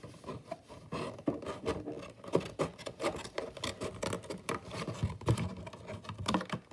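Gardening scissors cutting through a thin cardboard box: an irregular series of quick snips with crackling of the card as it is worked.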